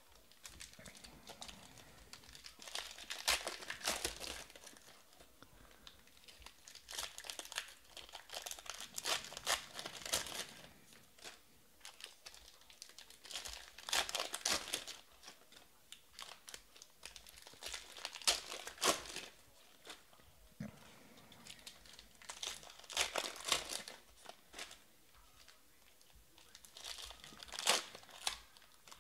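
Foil trading-card packs of Panini Prizm baseball being torn open by hand, the wrappers tearing and crinkling. The sound comes in about six bursts a few seconds apart, one pack after another.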